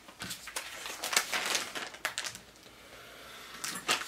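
Plastic packaging of a bacon pack crinkling and rustling as gloved hands handle it, in irregular bursts, loudest about a second in.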